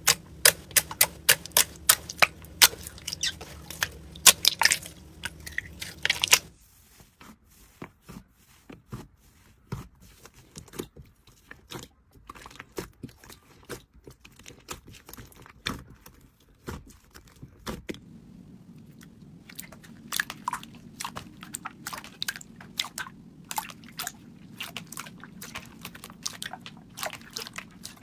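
Slime being squished, giving runs of sharp clicking pops and crackles, fainter through the middle stretch and louder again near the end.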